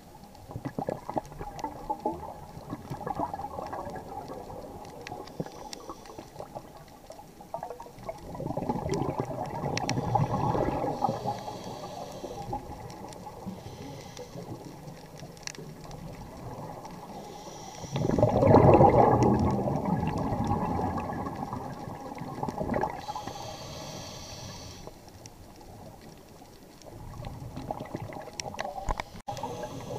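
A scuba diver's regulator underwater: three loud surges of exhaled air bubbling out, roughly ten seconds apart, with short hisses of inhaled air between them and faint crackling clicks throughout.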